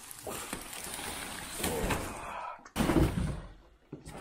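Cardboard and paper packing rustling as a long metal stabiliser bar is lifted out of its box, with a knock about three seconds in.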